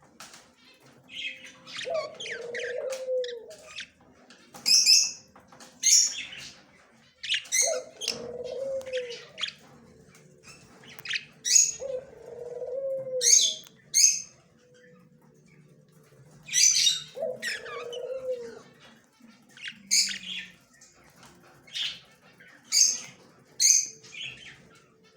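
Budgerigar calling in short, sharp high chirps, over and over. A lower, arching call of about a second comes four times, roughly every four to five seconds.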